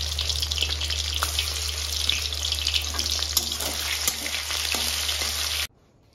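Chicken pieces sizzling and crackling as they fry in hot oil in a metal kadai, with a spatula stirring them in the second half, over a steady low hum. The sound cuts off suddenly near the end.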